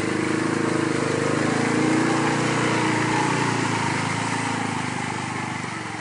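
Arctic Cat 700 H1 ATV's single-cylinder engine running under load as the quad churns through a mud hole, with mud and water splashing around the tires. The engine note rises about two seconds in, then drops and fades as the quad pulls away.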